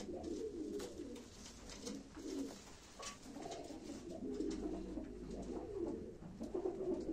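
Domestic pigeons cooing: low, rolling coos in overlapping phrases, sparser in the middle and busier in the second half, with a few faint clicks.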